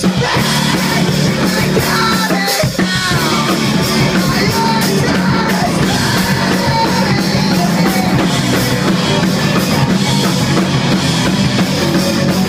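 Live rock band playing loudly: electric guitar and drum kit, with a singer's voice over them.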